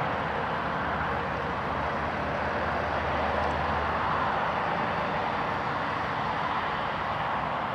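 Boeing 777-200ER's twin jet engines on final approach to landing, a steady rushing jet noise with a low rumble, swelling slightly about halfway through.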